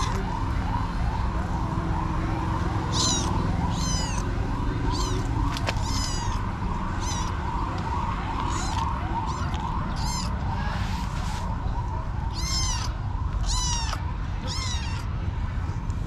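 Kitten meowing repeatedly, short high-pitched mews about once a second, over a steady fast chirping in the background.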